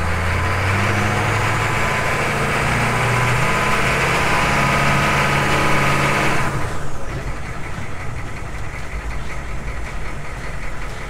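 A Humvee's freshly swapped 6.5 L turbo-diesel V8 is revved, heard from inside the cab. The engine climbs and holds at around 2,000 rpm, then is let back down to idle at about 650 rpm about six and a half seconds in.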